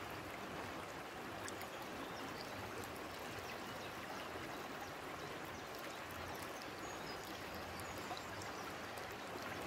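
Shallow river water flowing steadily, an even rushing with no breaks.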